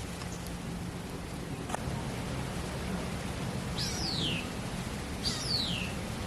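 Steady rain hissing, with two falling whistled bird calls, one about four seconds in and another a second later, and a single faint click before them.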